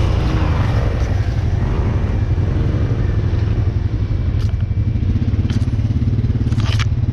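Off-road vehicle engine running steadily under way, with several sharp knocks and rattles in the second half.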